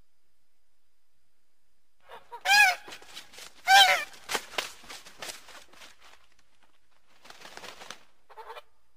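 Goose honking, starting about two seconds in: two loud honks a little over a second apart, then a string of fainter, shorter calls.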